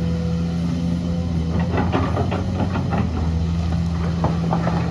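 Earthmoving machine's engine running steadily, with a run of metallic clanks and knocks starting about a second and a half in.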